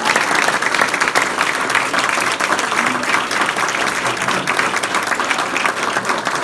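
A roomful of people applauding steadily, many hands clapping at once, at the end of a speech.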